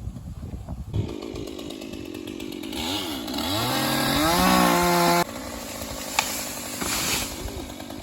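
Chainsaw engine running at idle, then throttled up with a rising whine to full speed for about two seconds before dropping abruptly back to idle.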